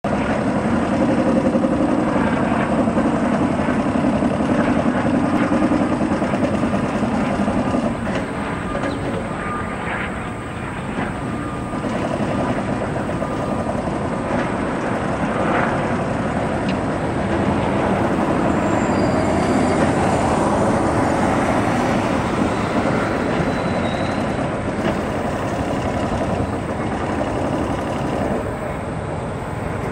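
GE P42DC diesel locomotive's 16-cylinder engine running under power as it leads a passenger train toward the platform, with the steady rumble of the train on the rails.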